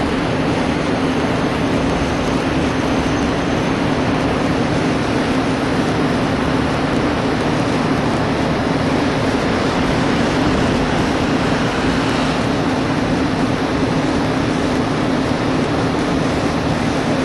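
Steady road and engine noise of a car driving along, with a constant low drone throughout.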